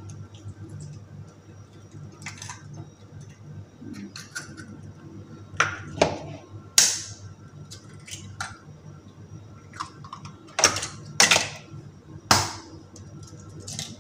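Eggs cracked open and dropped into a frying pan of oil: sharp cracks and taps of eggshell in two clusters, around six seconds in and around eleven seconds in, over a steady low hum.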